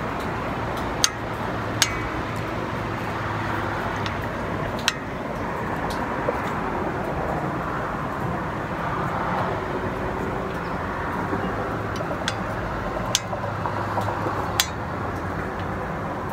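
Adjustable spring-loaded hand gripper being squeezed through a set of about twenty reps. A handful of sharp, irregularly spaced metallic clicks stand out over a steady rushing background noise.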